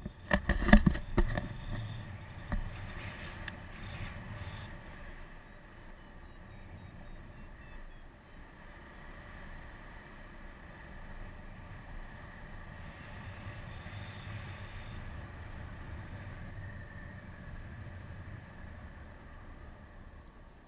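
Wind rushing over an action camera's microphone on a pole in paraglider flight, a steady low rumble. A burst of loud knocks and buffeting comes in the first two seconds or so.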